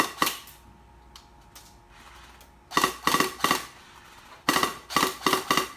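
Airsoft gun firing sharp, cracking shots: two at the start, then quick runs of several shots about three seconds in and again from about four and a half seconds in.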